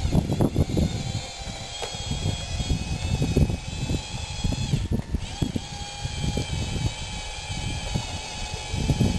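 Radio-controlled scale bulldozer's electric drive motors and gearboxes whining as it drives and turns on a dirt pile. The whine dips in pitch briefly about halfway through, then picks back up, over an irregular low rumble.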